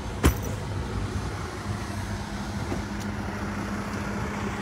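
Motor vehicle engine running steadily, a low idling rumble with a steady hum that settles in after about a second and a half. A single sharp click sounds just after the start.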